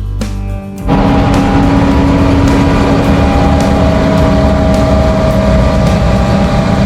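Guitar music for about the first second, then a heavy farm vehicle's diesel engine cuts in, running loud and steady with a rough rumble and a steady hum over it.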